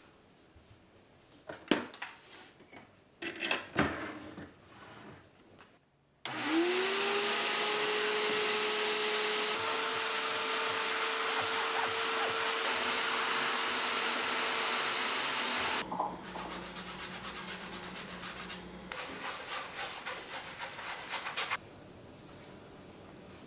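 Bissell SpotClean portable wet carpet-and-upholstery cleaner switched on about six seconds in. Its motor spins up with a rising whine, then runs steadily as the nozzle works detergent water through a fabric seat, and it cuts off about ten seconds later. Light clicks and handling noises come before and after it.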